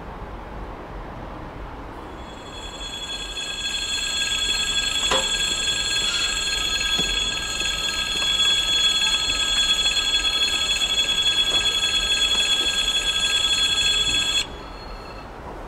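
Railway level-crossing warning bell ringing a steady, high metallic ring that starts about two seconds in and cuts off suddenly near the end. It signals that a train is approaching and the crossing barriers are coming down.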